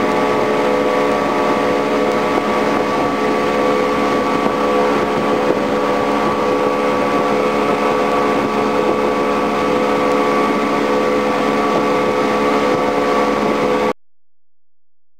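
Motorboat engine running steadily at speed, with rushing water and wind on the microphone; it cuts off suddenly near the end.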